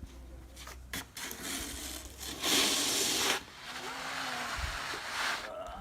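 Snow being scraped and shovelled: a loud scrape about two and a half seconds in, then a longer, softer one, after a few light knocks.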